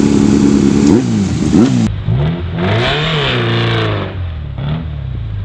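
Yamaha FZ750's inline-four motorcycle engine revving under way, its freshly rebuilt engine on a road test. A high, steady note drops about a second in, then the pitch rises and falls several times through revs and gear changes.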